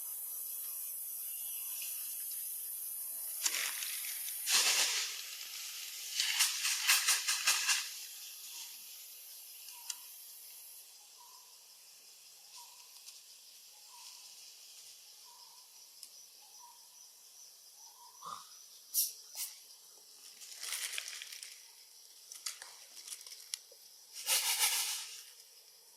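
Outdoor ambience with a steady high-pitched insect drone that fades out about halfway, broken by several short rustling noise bursts. A faint run of soft chirps repeats every second or so in the middle.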